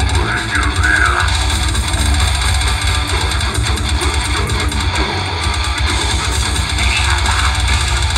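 Extreme metal band playing live, heard from the crowd: heavily distorted electric guitars and bass over drums, with a heavy low end.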